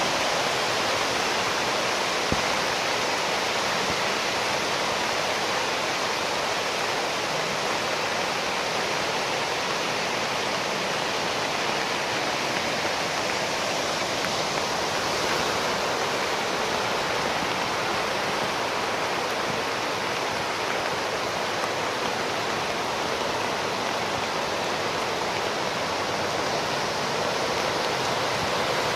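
Floodwater rushing down the concrete Verdugo Wash flood channel: a steady, unbroken rush of fast water, with one brief click about two seconds in.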